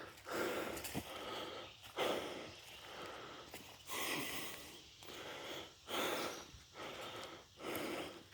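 A man's breathing close to the microphone, irregular breaths about once a second.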